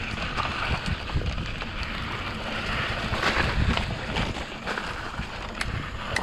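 Santa Cruz Nomad mountain bike descending a dirt singletrack: a steady rush of wind over the camera microphone and a low rumble of tyres rolling over dirt, with scattered sharp clicks and rattles from the bike.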